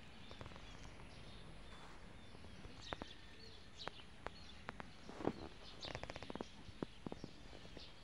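Quiet outdoor background with faint bird chirps. From about three seconds in come scattered light clicks and crunches of footsteps on grass.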